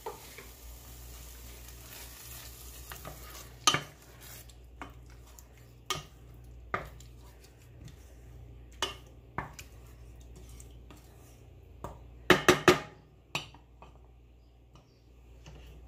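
Salsa sizzling in a hot saucepan while a wooden spoon stirs it and knocks against the pan. The sizzle dies down after about four seconds, and a little before the end the spoon strikes the pan three times in quick succession.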